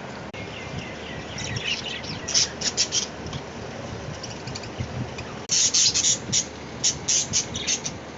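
Small pet parrots chirping in quick runs of sharp, high calls. A short burst comes about two seconds in and a longer, louder series from the middle to near the end, with softer warbling just before the first burst.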